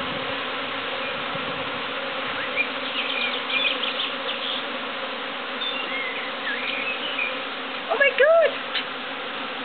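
Steady buzzing hum of a large honeybee swarm flying close around, with a brief louder call of rising and falling pitch about eight seconds in.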